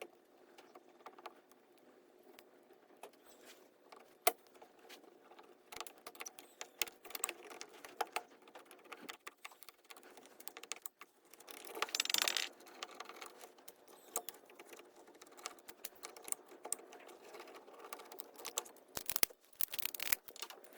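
Small metal carburetor parts clicking, tapping and clinking as a two-barrel Holley carburetor is taken apart and refitted by hand. There is a louder burst of handling noise about twelve seconds in.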